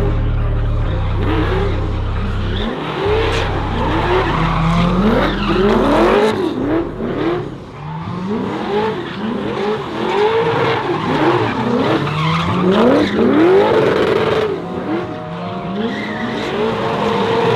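Car engine revving up and down over and over, roughly once a second, with tyres squealing and skidding as the car spins donuts.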